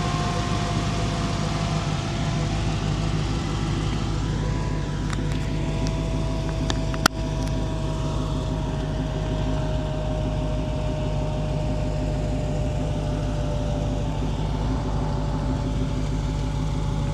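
Dodge Hellcat's supercharged 6.2-litre Hemi V8 idling steadily, with the radiator cooling fans running because the engine is running a little hot. A whine slowly drops in pitch, and a single sharp click comes about seven seconds in.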